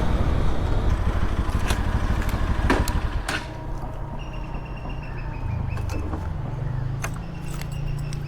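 Motorcycle engine idling with a steady low rumble that drops in level about three seconds in, with a few sharp clicks over it.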